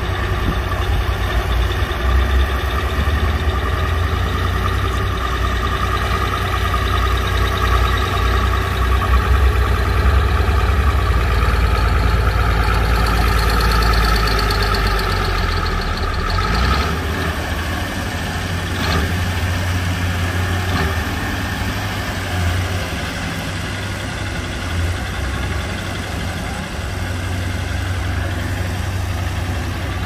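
Komatsu crawler bulldozer's diesel engine running steadily, working as the dozer pushes soil and mud; the deep rumble eases a little about halfway through.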